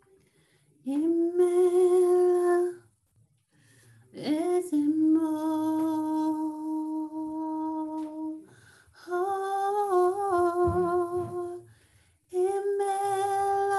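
A woman singing a slow praise song unaccompanied, in four long held notes with short breaths between them; each note slides up into pitch, and the second is held about four seconds.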